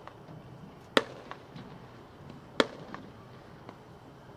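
Consumer fireworks cake (Color Fish, 16-shot) firing: two sharp reports about a second and a half apart, with a few faint ticks between them.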